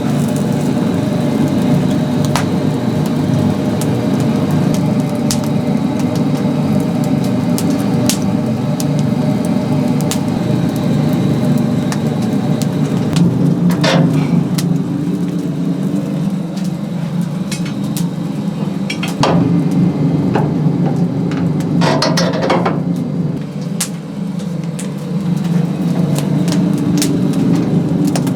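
Steady low machine hum with many small sharp crackles and clicks scattered over it, and a few louder clatters about halfway through and again near two-thirds.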